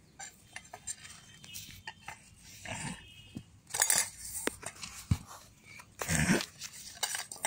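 A dog barking twice, briefly, amid scattered rustles and knocks.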